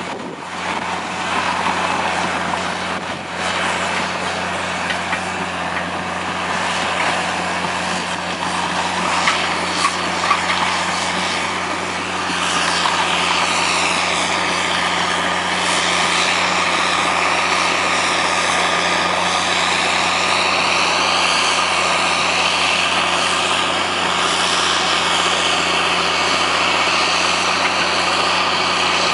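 Diesel engine of a tracked tile plow running steadily under load as it pulls plastic drainage tile into the ground, getting somewhat louder about twelve seconds in.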